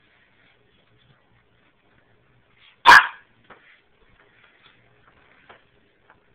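A Boston Terrier–French Bulldog mix puppy gives a single loud, sharp bark about three seconds in, with faint scattered ticks around it.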